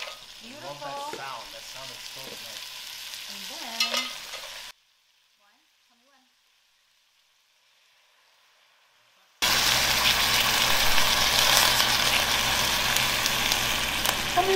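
Mussels sizzling as they are tipped into a hot steel pot of sautéed chorizo, fennel and garlic, with a few shell and pot clatters. After several seconds of near silence, a loud, steady hiss starts as wine is poured over the mussels in the hot pot.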